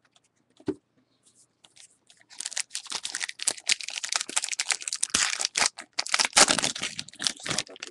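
Foil wrapper of a 2013 Topps Gypsy Queen baseball card pack being torn open and crinkled by hand. A dense crackling that starts about two seconds in and goes on for about five seconds.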